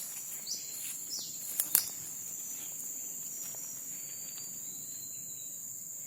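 Steady high-pitched insect drone, with a few short rustles and clicks in the first two seconds, the loudest one near the end of that stretch.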